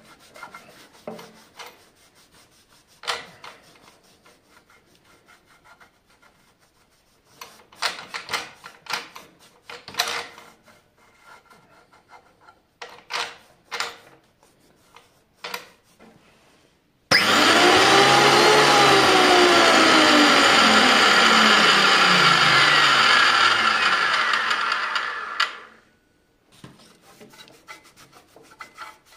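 Rag wiping and scrubbing the feed rollers of a Belmash 2200 thickness planer in short strokes. About 17 s in, the planer's motor and three-knife cutterhead are briefly switched on to turn the rollers. The machine runs loudly, then coasts down with its pitch falling and stops about eight seconds later. The rubbing resumes near the end.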